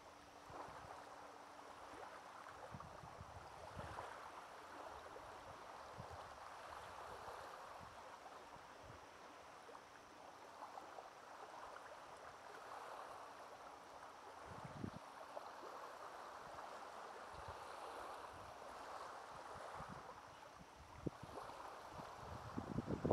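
Small waves lapping gently on a pebble shore, a faint steady wash that swells and eases. A few low wind buffets on the microphone, the strongest near the end.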